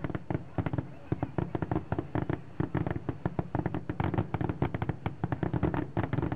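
Fireworks crackling: a dense, irregular run of sharp cracks, many a second, without a pause.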